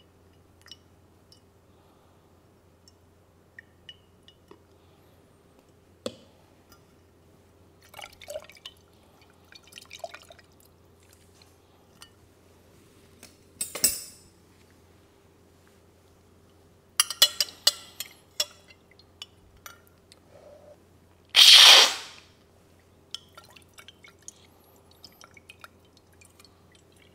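Pour-over coffee gear handled up close: faint drips and small clicks, then light clinks and clatters of ceramic and glass as the dripper is lifted off the glass server and set on a cup. About two-thirds of the way in comes one loud rushing sound lasting about a second.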